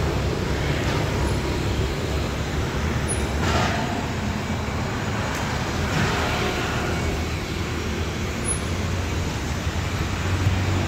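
Street traffic on a town road: motorbikes and cars going by in a steady low rumble, with two brief louder swishes of nearer passes about three and six seconds in.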